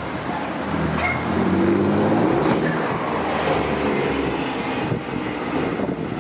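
A vehicle engine running, rising to its loudest about two seconds in and easing off after about four seconds.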